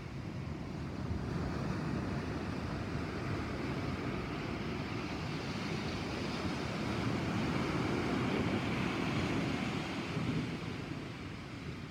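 Thunderstorm noise: a steady rushing of wind and rain, swelling with a low rumble from about seven seconds in and easing off near the end.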